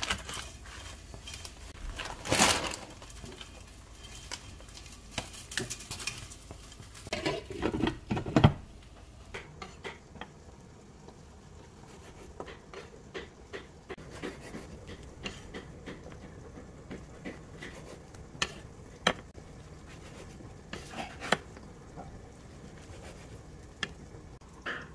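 Kitchen knife slicing a rolled omelette on a wooden cutting board: short, sharp knocks at irregular intervals each time the blade meets the board. In the first eight seconds there are a few louder clatters of pans and utensils.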